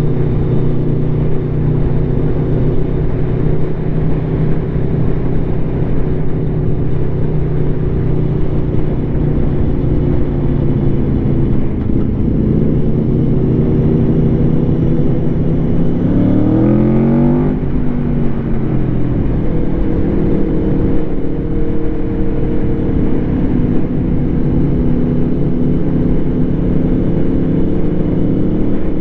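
2021 Aprilia Tuono V4's engine running through an SC Project SC1-R carbon slip-on exhaust, holding fairly steady revs on the move. About sixteen seconds in the revs climb sharply for a second or so, then fall back.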